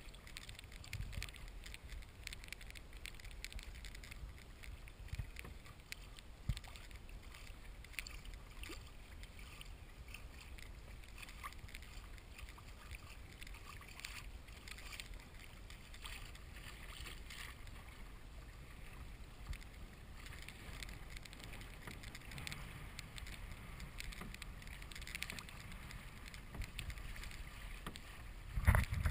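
Water sloshing and lapping around a moving kayak, with a low rumble of wind on the microphone and small scattered ticks. One loud knock comes just before the end.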